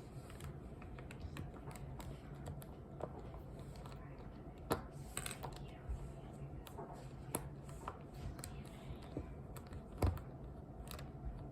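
Scattered light plastic clicks and taps from the pieces of a disassembled mini Rubik's cube being handled, with sharper clicks about five seconds in and again near ten seconds.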